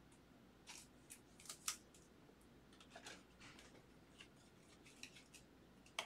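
Faint, scattered light scrapes and ticks of a trading card and a rigid plastic toploader being handled, the card slid into the toploader, with a sharper plastic click near the end.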